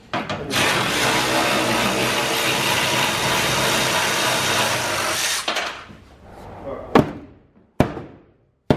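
A power tool runs steadily for about five seconds and cuts off, followed by three sharp knocks.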